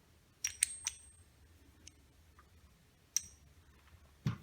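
Sharp metallic clicks and clinks of a metal hand tool being handled in a toolbox: three quick ones about half a second in, another about three seconds in with a brief high ring, and a knock near the end.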